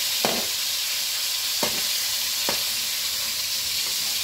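Fish steaks sizzling steadily in hot oil in a metal wok, with three short sharp clicks in the first two and a half seconds.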